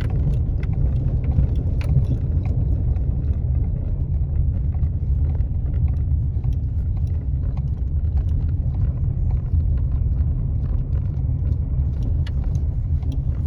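Chevrolet pickup truck on the move, heard from inside: a steady low engine and road rumble, with scattered light ticks over it.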